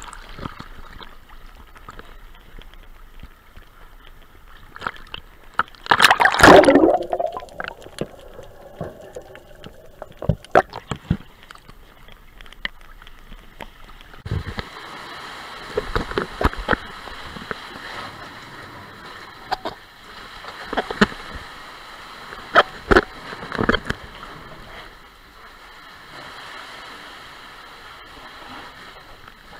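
Sea water sloshing and splashing around an action camera carried half-submerged at the surface, with repeated sharp splashes and gurgling as it dips in and out of the water. The loudest moment is a splash and gurgle about six seconds in.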